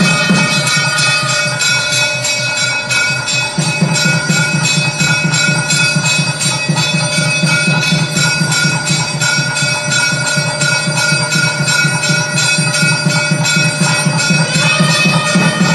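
Hindu temple bells clanging rapidly and without a break, several ringing tones held over the strikes, with a low quick beat underneath: the bell-ringing that accompanies the aarti lamp offering.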